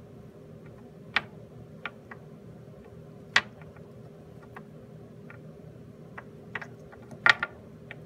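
A hamster gnawing on a hard Whimzees dog chew: irregular sharp cracks and clicks of teeth on the chew, the loudest a little over a second in and at about three and a half seconds, with a quick cluster near the end. A low steady hum runs underneath.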